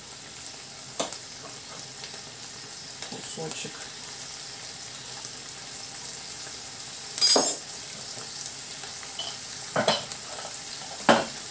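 Pork pieces frying in oil in a frying pan, a steady sizzle, with a few sharp knocks and clinks as slices of butter are cut and dropped into the pan, the loudest about seven seconds in.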